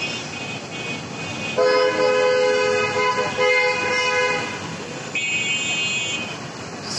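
A vehicle horn sounds one long blast of about three seconds, then a shorter, higher-pitched horn beeps for about a second, over steady street noise.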